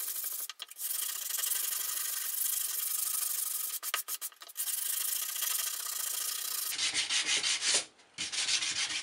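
Sandpaper rubbed by hand over a turned plum-wood letter opener, sanding out marks left where the sanding disc touched the handle. It makes a steady rasping hiss that breaks off briefly twice, then turns into quick back-and-forth strokes about seven seconds in.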